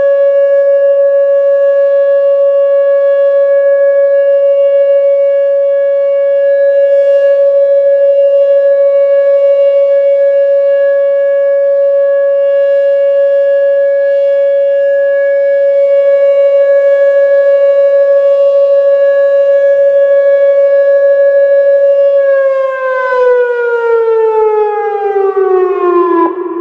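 Whelen WPS-2805 electronic outdoor warning siren sounding its loud steady monotone Alert signal, a chemical-release warning tone. About 22 seconds in, the pitch begins to slide down as the signal winds down.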